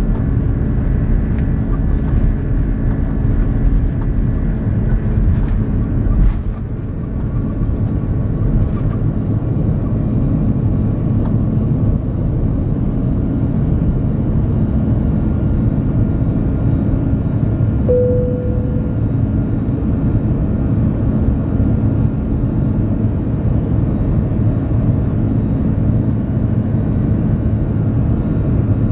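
Airbus A330-300 heard from inside the cabin during takeoff: the jet engines run steadily at takeoff thrust over a heavy rumble. The runway rumble fades about six seconds in as the wheels leave the ground, and the engine noise carries on steadily through the climb.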